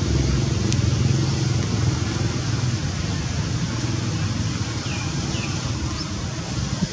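Low engine hum of a motor vehicle running steadily and slowly fading away, over outdoor background noise, with two short high chirps about five seconds in.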